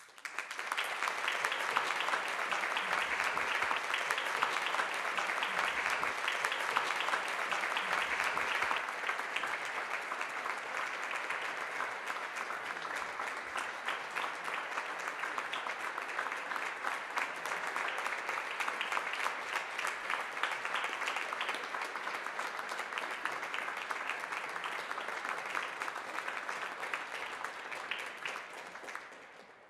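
Audience applauding: a long, steady round of clapping that breaks out suddenly and dies away near the end.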